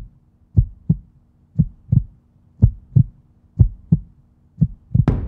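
Heartbeat sound effect: paired low thumps, lub-dub, about once a second over a faint steady hum. Music comes in just before the end.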